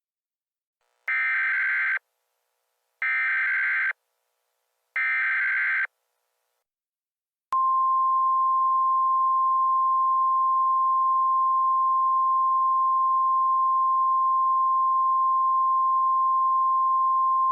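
Emergency Alert System header: three bursts of digital data tones, each about a second long with a second's gap between them. After a short pause comes a steady single-pitched attention tone that starts suddenly and holds for about ten seconds.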